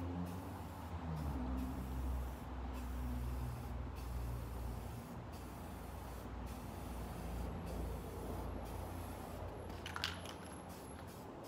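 Aerosol spray-paint can hissing as paint is sprayed, over a low steady rumble, with one short click about ten seconds in.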